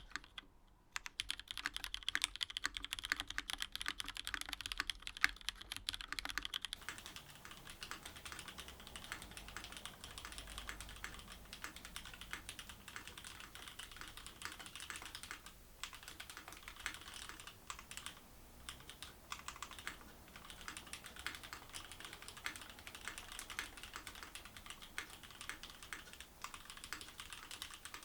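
Continuous typing on a Kage TKL keyboard with lubed vintage Cherry MX Black linear switches, an aluminium plate in a polycarbonate case and GMK keycaps: a dense run of keystroke clacks. There is a short pause about a second in, and the strokes turn softer and more even after about seven seconds.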